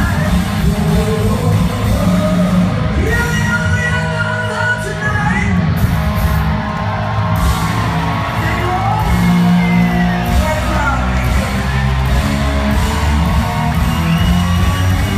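Live rock band playing electric guitars, bass and drums, with a woman singing over them.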